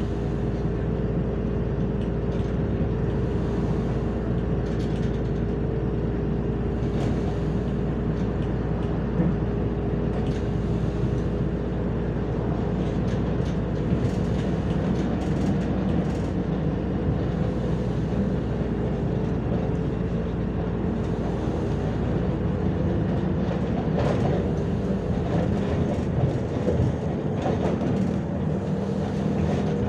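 Ride inside a MAZ-105 articulated city bus: steady engine drone and road rumble, with occasional knocks and rattles from the body. The deepest rumble fades near the end.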